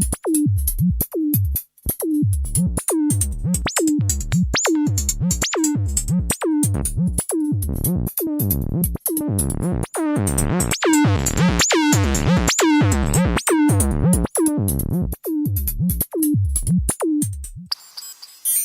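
Electronic drum-machine music: a steady beat of about two hits a second, each hit a falling, zapping synth sweep, with a brighter synth layer in the middle. It stops about a second before the end.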